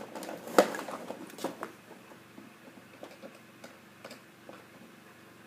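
A few sharp clicks and knocks of objects being handled, the loudest about half a second in, followed by scattered fainter ticks.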